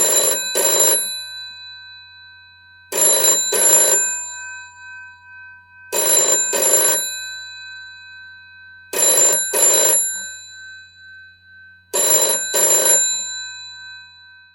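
Old telephone bell ringing in double rings, two short bursts each, repeating about every three seconds, five times in all; the bell's tone rings on between the rings.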